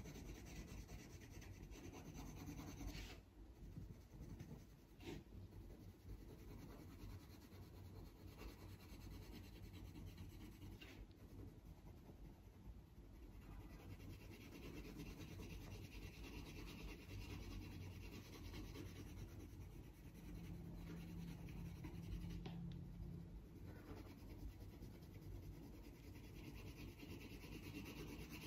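Faint scratching of a colored pencil on paper, shading in steady back-and-forth strokes.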